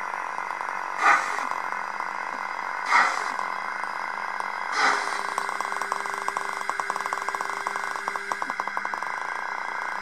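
Sound decoder of a Roco H0 class 85 model steam locomotive playing slow exhaust chuffs, one about every two seconds, over a steady hiss. About five seconds in, a steady tone with rapid clicking starts and runs for about three and a half seconds.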